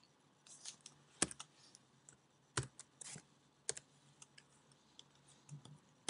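Faint, scattered keystrokes on a computer keyboard: a dozen or so irregular clicks with short pauses between them.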